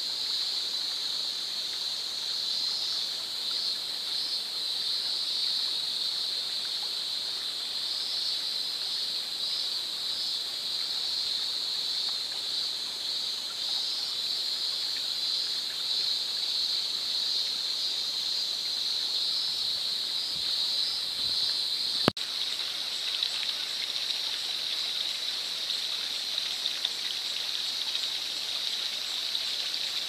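Shallow forest stream trickling, a steady hiss of running water, with one sharp click about 22 seconds in.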